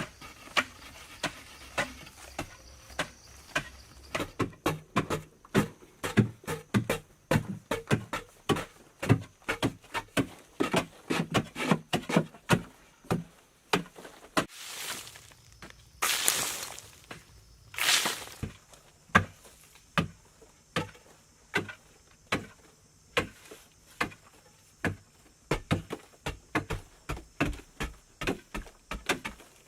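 Repeated sharp knocks or strikes, about two to three a second, with a few longer rustling or scraping sounds about halfway through.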